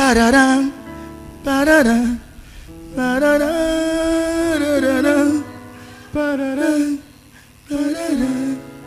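A voice singing a slow melody in short phrases, with one long held note in the middle, over soft instrumental backing.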